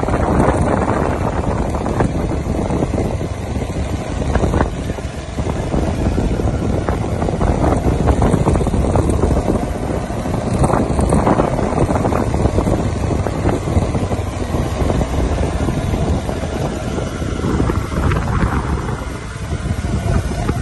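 Steady, loud wind rush buffeting the microphone, like that picked up on a moving motorcycle.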